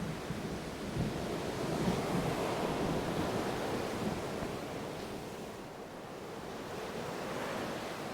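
Ocean surf washing in, rising and falling in two swells of noise.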